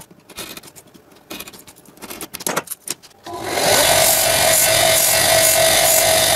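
Light scrapes and clicks of a copper-clad circuit board being handled, then about three seconds in an Einhell bench belt sander comes in loud and runs steadily with a steady whine, a small milled PCB held against the abrasive belt to sand its edge.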